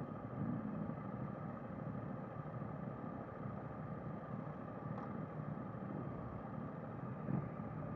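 Motorcycle engines idling steadily with a low rumble.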